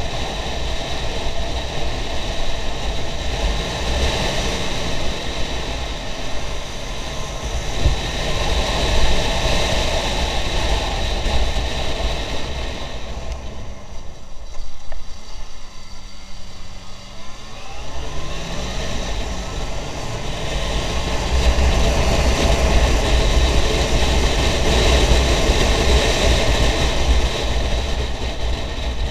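Riding motorcycle heard from a camera on the bike: engine running under heavy wind rush on the microphone. About halfway the wind noise drops as the bike slows for a tight bend, and the engine note falls and then rises again as it pulls away.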